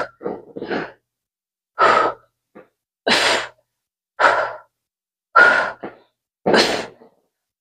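A person breathing out hard in short, forceful puffs of air, about one every second, as during a set of exercise repetitions.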